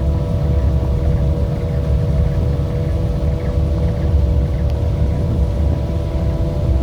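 Engine of a 4x4 vehicle running steadily at a constant pitch, over a heavy low rumble.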